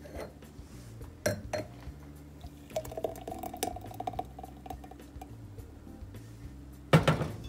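Thick milkshake being poured from a glass blender jar into a wine glass, with a couple of glass clinks about a second in and a loud knock near the end. Soft background music runs underneath.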